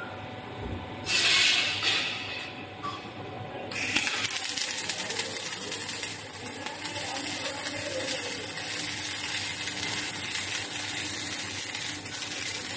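Station tube welding machine at work. A short burst of hiss comes about a second in, then from about four seconds a steady, even hiss of the welding arc and its shielding gas.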